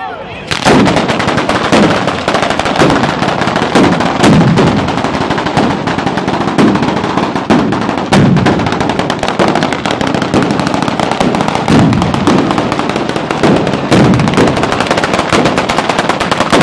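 A ground fireworks battery of firecrackers going off in a rapid, unbroken crackle that starts about half a second in, with heavier bangs about once a second.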